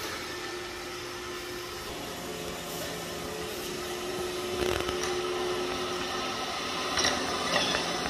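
iRobot Roomba i7+ robot vacuum running, a steady motor-and-brush whir with a few held tones that grows slightly louder as it approaches. There are short clicks and taps about five seconds in and again near the end.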